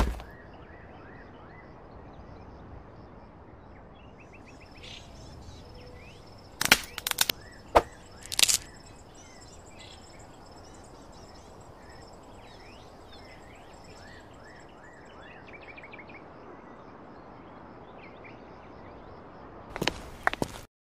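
Forest ambience with a steady hiss and many birds chirping. A cluster of sharp, loud hits comes about seven to eight and a half seconds in, and another comes near the end.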